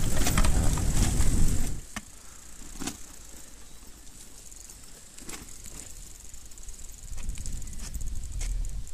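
Wind rumbling on the microphone of a moving bicycle, which stops about two seconds in. That leaves a quieter stretch of steady high insect chirring from the grass, with scattered light clicks. Low wind rumble comes back near the end.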